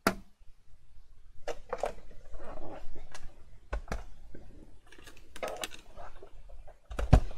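Crafting handling noises: scattered taps, clicks and rustles of card and tools on a cutting mat. A manual die-cutting machine is moved into place, with a dull knock about four seconds in and a few heavy thumps near the end as it is set down.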